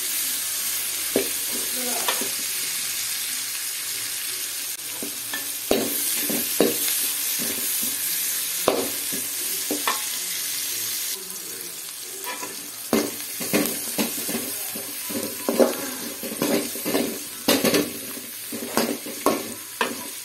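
Sliced onions sizzling in oil in a metal kadai, stirred with a perforated steel spatula that scrapes and knocks against the pan again and again. The strokes come thicker in the second half, and the sizzle's hiss drops a little about halfway through.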